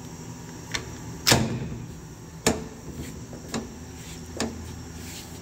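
Five separate clunks and knocks from the Haas TM2's sheet-metal enclosure door. The loudest, about a second in, rings on briefly.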